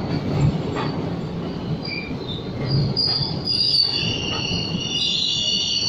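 Howrah–Mumbai Mail train running on the rails with a steady rumble and occasional knocks. From about three seconds in, a high steady wheel squeal sets in and holds.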